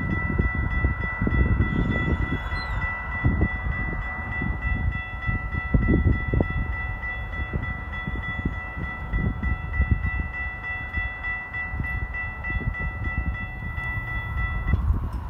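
Railroad crossing warning bell ringing steadily as the crossing gates lower, falling silent abruptly near the end once the gates are down. An uneven low rumble runs underneath.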